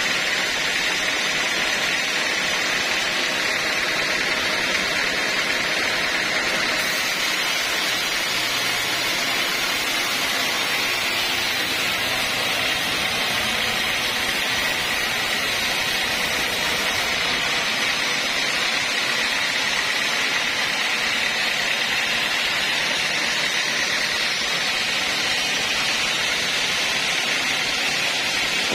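Homemade band sawmill running with a steady, noisy whine while sawing a mahogany log; the hiss brightens for about ten seconds in the middle.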